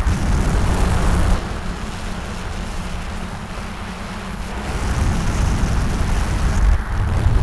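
DJI F550 hexacopter's six brushless motors spinning 10x5 propellers, heard through the onboard camera's microphone with heavy wind rumble. The noise is loudest for the first second and a half, dips, then swells again from about four and a half seconds in.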